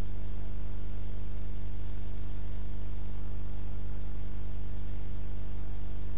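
Steady electrical hum with hiss, a low buzz of evenly spaced tones that does not change: mains hum and noise picked up by the recording or amplification equipment.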